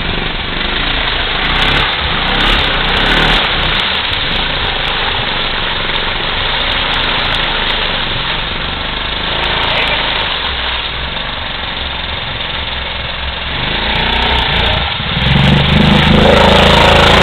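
Kawasaki Brute Force ATV engine running as the quad wades through deep muddy water. It gets louder and steadier about fifteen seconds in.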